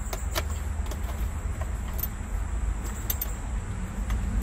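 Scattered light clicks and plastic rattles from a wire being worked in behind a Jeep Wrangler's dash trim by hand, over a steady low rumble.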